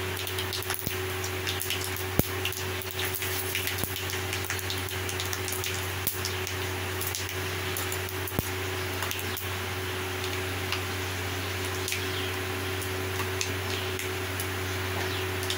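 Hot oil sizzling in a kadai, a steady hiss full of small crackles and pops, with two sharper pops about two seconds in and about eight seconds in. A steady low hum runs underneath.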